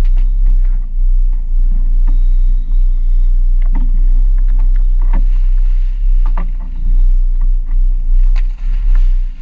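Dive boat's engine running with a loud, steady low rumble, with scattered knocks and clanks of dive gear through it. A sharper hit near the end comes as a diver steps off the stern into the sea.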